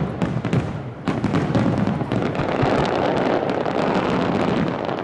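Fireworks display in a dense barrage: many shells bursting and crackling in quick succession, with a fresh wave of loud bangs about a second in.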